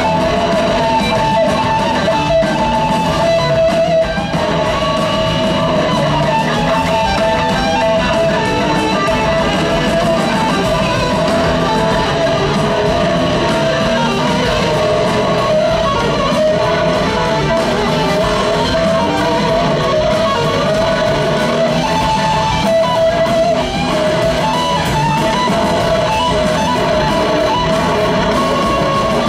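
Live electric guitar solo over a full rock band, the lead guitar holding long sustained notes that bend and glide between phrases.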